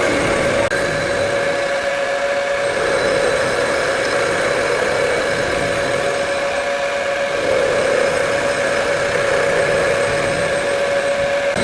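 CNC machine cutting the teeth of a metal sprocket, running steadily with a constant whine over a noisy mechanical hum.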